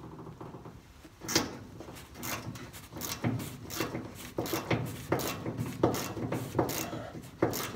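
Irregular metallic clicks and knocks of a hand wrench working a stubborn nut and bolt on a pickup's frame, several a second after about a second in; the bolt is fighting the tool rather than breaking loose.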